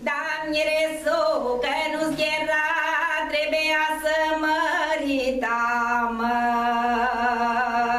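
A woman singing an old Maramureș folk song solo, her voice wavering and ornamented. A little over five seconds in, the melody gives way to one steady held note.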